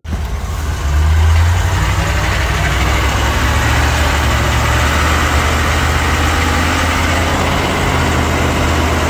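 Range Rover Classic driving, its engine running steadily under loud road and wind noise coming up through the cut-open floor.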